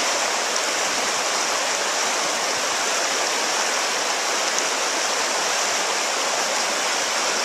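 Fast river water rushing steadily over rocks through a stretch of whitewater rapids.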